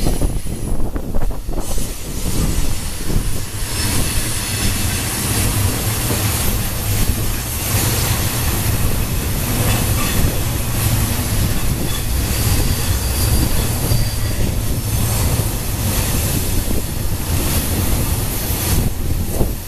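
Freight cars rolling past on a curve: a steady rumble of steel wheels on rail with clacking over the joints and some high-pitched wheel squeal.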